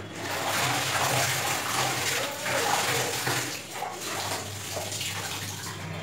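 Wet clothes being washed and rinsed by hand: water splashing and sloshing, with uneven surges as the sodden fabric is worked and water is poured.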